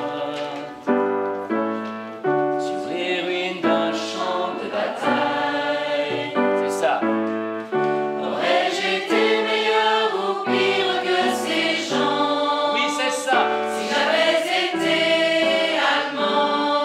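A large amateur choir singing a slow French song phrase with piano chords struck about once a second. The long notes are sung straight, without shaping: flat, 'like software', in the choirmaster's judgement.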